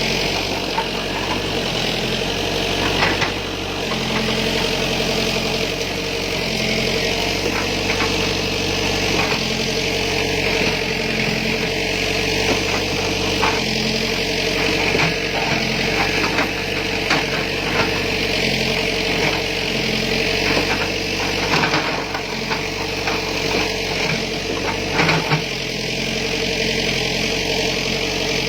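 Backhoe's diesel engine running steadily, with scattered short knocks and clicks over the engine note.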